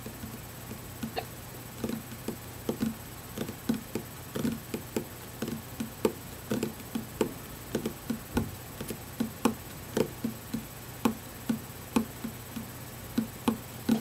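Fingers drumming and tapping on a wooden tabletop: an irregular run of short, soft taps, about two to three a second, starting about a second in.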